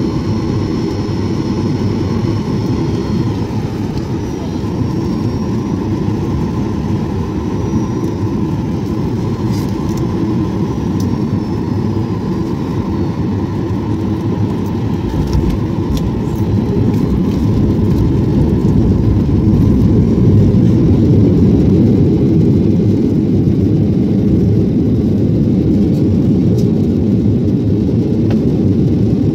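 Airliner cabin noise at a window seat as the plane lands and rolls down the runway: a steady, deep rumble of engines and rushing air, growing louder a little past halfway through.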